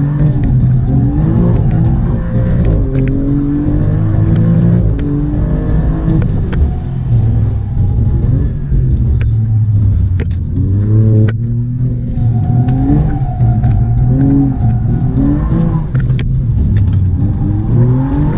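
Alfa Romeo Giulia Quadrifoglio's twin-turbo V6 heard from inside the cabin, revving up and dropping back over and over as the car is driven hard around a track, accelerating and easing off through the gears.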